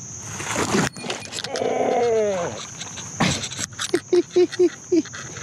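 A man wading into a shallow, soft-bottomed creek: water splashing and sloshing around his legs as he steps in, with a drawn-out falling "ohh" and then a quick string of four or five short "oh" grunts, about four a second, near the end. Insects chirr steadily in the background, high-pitched.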